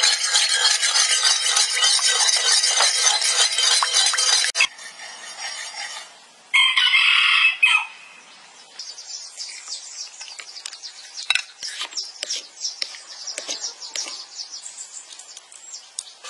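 Rooster crowing loudly, one long crow followed by a shorter one about six and a half seconds in. After that, only quieter small clicks and chirps.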